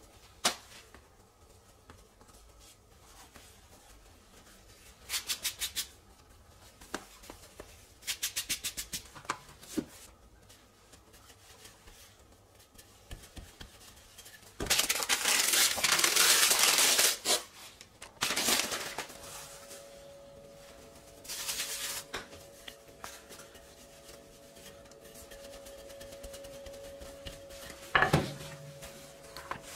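Wooden rolling pin rolling over a slab of laminated croissant dough on the work surface for about three seconds, the loudest sound, followed by two shorter rolls. Before it come a sharp click and two short runs of quick ticks, later a steady hum sets in, and there is a thump near the end.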